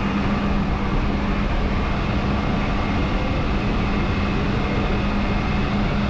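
Isuzu NPS 4x4 truck driving along a sandy forest track: a steady drone of engine and road noise, heard from a camera mounted on the outside of the truck.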